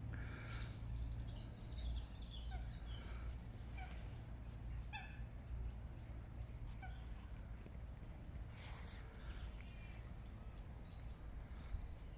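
Birds chirping on and off in short, high notes over a steady low rumble, with a brief rush of noise about nine seconds in.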